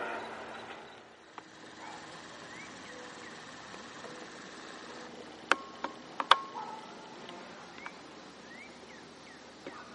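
A MARC commuter train's horn trails off in the first second. Then faint outdoor ambience follows, with short rising chirps and two sharp clicks a little past the middle.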